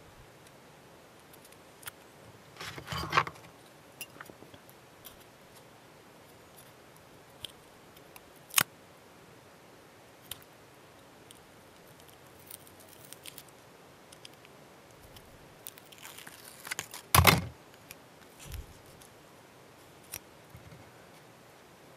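Small tools and model parts being handled on a workbench: sparse light clicks and taps with two short bursts of rustling and scraping. A sharp click comes a little before the middle, and the loudest knock comes about three-quarters of the way in.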